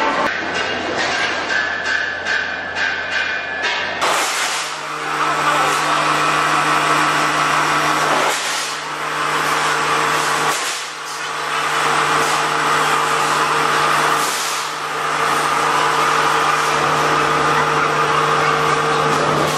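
Workshop machinery running steadily. About four seconds in the sound changes abruptly to a steady low hum with a hiss over it, with a few brief dips in level.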